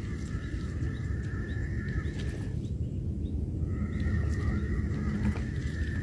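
Wind rumbling on the microphone, with a thin, steady high-pitched whine over it that drops out for about a second midway.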